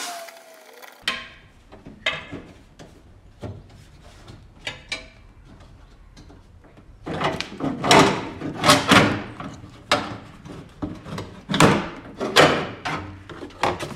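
Plastic under tray being worked loose and pulled down from the underside of a VW Transporter T6: a series of sharp knocks and clatters, heaviest and most frequent from about seven seconds in to near the end.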